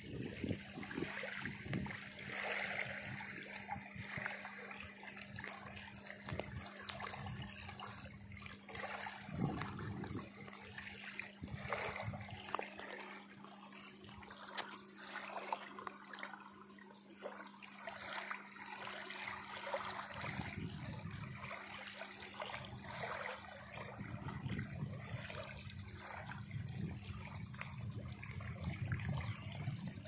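Small reservoir waves lapping and splashing on a stony shore, with a faint steady hum underneath.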